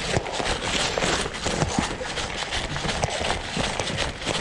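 Footsteps of a person running over the dirt and leaf litter of a woodland floor, uneven and quick, with rustling as the runner brushes through ferns and undergrowth.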